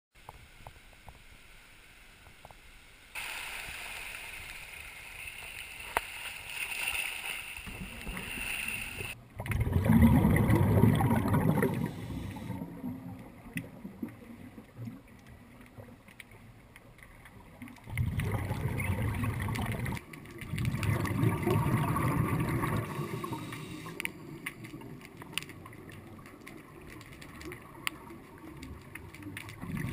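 Muffled underwater sound picked up by a camera in its housing: bursts of low gurgling from scuba divers' exhaled bubbles, each about two seconds long, over water hiss, with scattered clicks.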